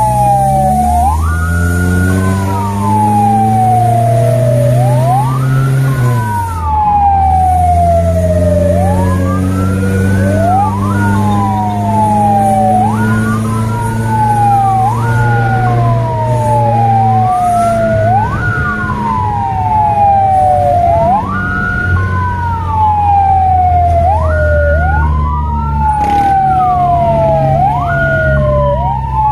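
Fire-rescue vehicle's electronic siren wailing, cycling about every three seconds with a quick rise, a brief hold at the top and a slow fall. Under it the vehicle's engine climbs in pitch as it accelerates, then drops sharply about six seconds in, like a gear change, and climbs again.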